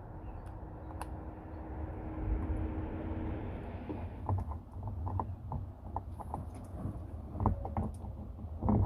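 Small knocks and clicks from objects being handled and moved, thickening from about four seconds in, over a steady low rumble with a faint hum that stops after about three seconds.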